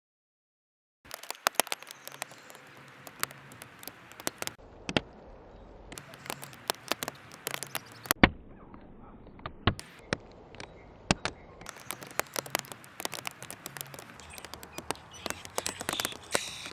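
Backyard birds at a feeder: a fast, irregular run of sharp clicks and taps from beaks pecking seed and feet landing, starting after about a second of silence.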